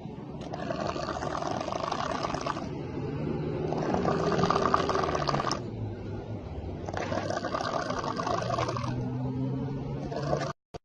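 A person snoring loudly with a growl like a hungry tiger, each noisy breath lasting about two seconds and coming roughly every three seconds, with a lower-pitched drone between them. The sound cuts out briefly near the end.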